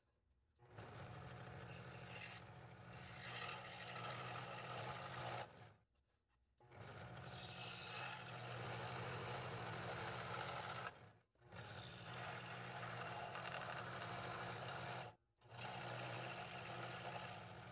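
Scroll saw with a number 5 blade cutting through a wooden block, its motor humming steadily under the rasp of the blade. It runs in stretches with a few brief breaks.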